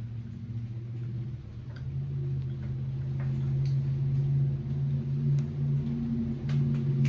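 A motor or engine running steadily, its pitch stepping up a little while it grows louder, with light ticks and clicks over it.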